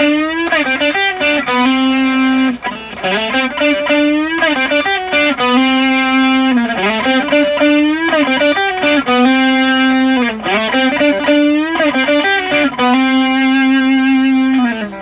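Electric guitar, a modified Fender Japan ST54-95LS Stratocaster on its rear pickup, playing a lead lick four times over. Each time, bent and sliding notes settle into a long held note. Its Fender mid booster is being turned up in steps to full boost.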